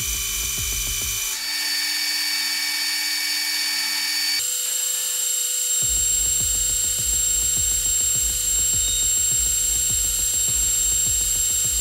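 Metal lathe spinning a turned steel shaft, giving a steady high whine whose pitch changes abruptly twice. Over it runs background electronic music with a steady beat; the beat drops out about a second in and comes back about six seconds in.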